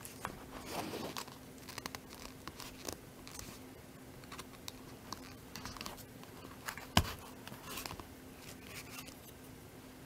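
Hands handling a small wallet on chain: soft rubbing and rustling with scattered light clicks, and one sharp click about seven seconds in, the loudest sound. A faint steady hum lies underneath.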